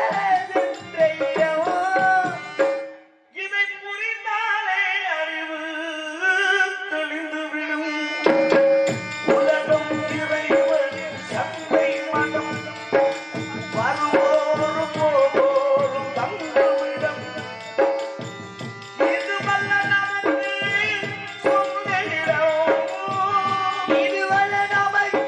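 A man singing a Tamil stage-drama song into a microphone, accompanied by tabla. The drumming stops for a few seconds near the start, leaving the voice and melody alone, then comes back with a steady rhythm.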